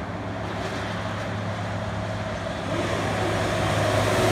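Highway traffic noise from below, with an approaching heavy truck's engine drone and tyre noise growing louder toward the end.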